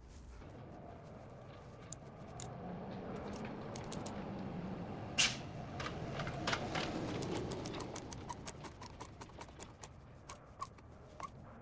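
Close handling sounds of work on a wooden box: scattered light clicks and taps, with a soft rubbing noise that swells through the middle and a sharper click about five seconds in.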